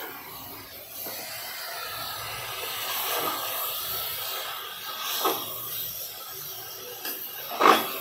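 Chicken and tomatoes frying in a pressure cooker, a steady sizzle, while a spatula stirs and scrapes the pot, with two louder scrapes about five seconds in and near the end.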